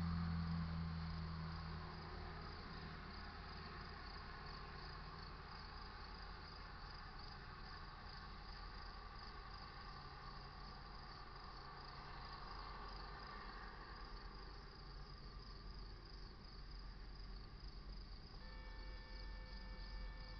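Night insects chirping steadily in a fast, even pulse, faint throughout. A low rumble fades away over the first couple of seconds, and a steady tone with several overtones begins near the end.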